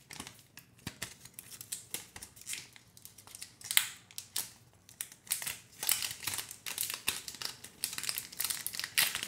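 Clear protective plastic film being peeled off a small earbud charging case by hand, crinkling in many small irregular crackles that get busier in the second half.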